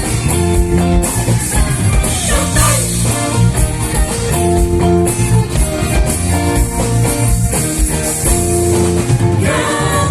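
Live gospel band playing a song, with a drum kit, bass, guitar and singing.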